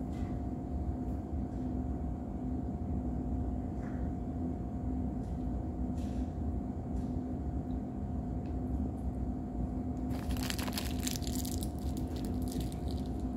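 A steady low hum throughout, with a few faint ticks; about ten seconds in, a plastic snack wrapper crinkles for about three seconds as it is lifted to the mouth.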